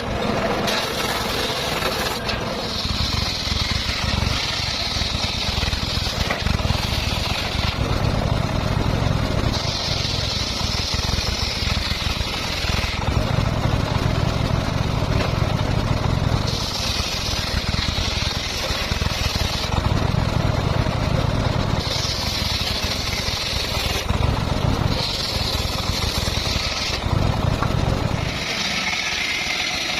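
Circular saw running and making repeated cuts, about seven in all: each cut rises into a loud, higher-pitched whine lasting a few seconds, with short lulls between cuts while the blade spins free.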